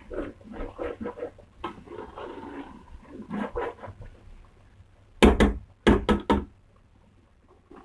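Metal ladle mashing soft cooked eggplant and chicken in an aluminium pot, with wet, uneven scraping and squelching. A little after the middle, the ladle knocks sharply against the pot about five times in quick succession.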